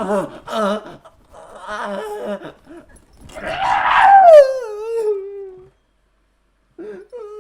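A man's wordless, exaggerated vocal cries: a long, loud howl that falls steadily in pitch about three to six seconds in, and a shorter one near the end.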